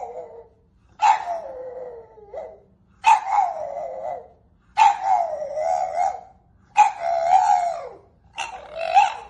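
French bulldog howling in a run of about five drawn-out, wavering yowls, each starting sharply and sliding down in pitch, with short breaks between them.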